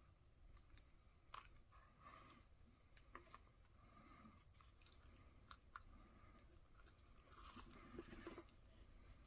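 Faint hand-stitching of a leather sheath: small clicks of the needles going through the holes and short scratchy rasps of thread drawn through the leather, with a longer pull near the end.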